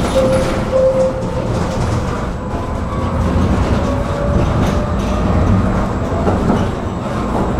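Tram running on its rails: a steady rumble of wheels and running gear with a thin whine held near one pitch.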